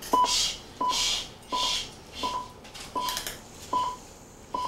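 Fetal heart monitor's Doppler heartbeat: a whooshing pulse with a short beep on each beat, about seven beats, spaced a little wider toward the end. The baby's heart rate is dipping during a big contraction, which the doctor calls very normal.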